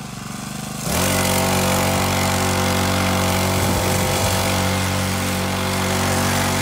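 Small single-cylinder pit bike engine running under way, building over the first second and then holding a steady, even note.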